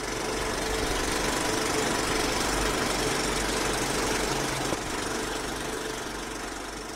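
Steady mechanical whirring and rattling from an intro sound effect, fading out near the end.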